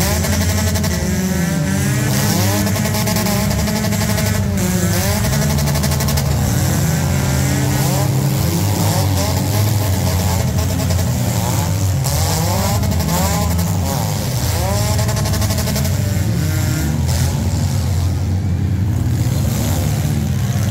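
Several compact cars' engines revving hard at once in a demolition derby, their pitches rising and falling as they accelerate and reverse.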